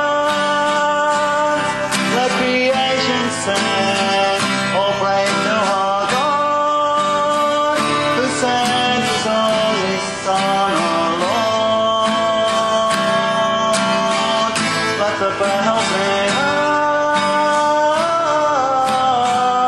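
Acoustic guitar strumming chords, with a held melody line that slides in pitch above it.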